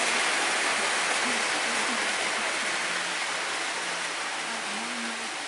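Model trains running on the layout's track: a steady rushing hiss of wheels and motors that slowly fades as the train moves off.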